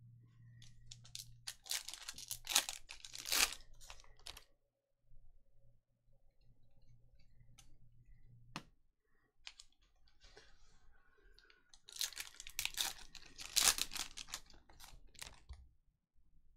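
Trading-card pack wrappers being torn and crinkled and cards flicked through by hand, in two bursts of rustling and clicks: one a couple of seconds in, the other near the end.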